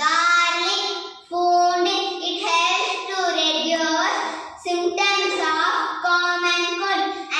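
A young girl singing solo, unaccompanied, in long held notes with short breaks between phrases.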